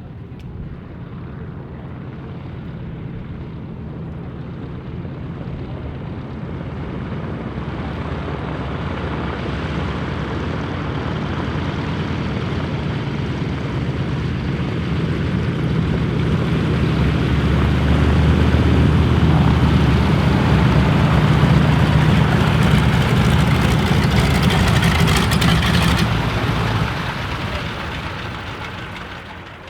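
Ford Trimotor's three Pratt & Whitney Wasp radial engines running as the plane taxies in, growing steadily louder over about twenty seconds, then dying away near the end.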